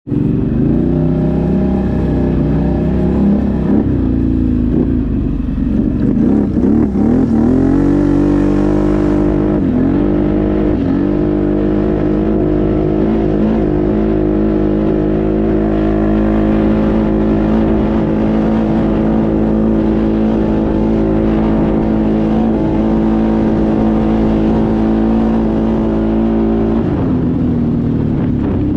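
ATV engine running under way: the revs climb about seven seconds in, dip briefly twice, then hold steady at high revs for a long stretch before falling back near the end.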